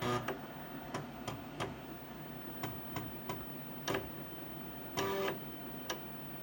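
Floppy disk drive working during a boot: irregular sharp clicks of the head stepping, with short buzzing bursts where the head seeks across several tracks, the longest about five seconds in.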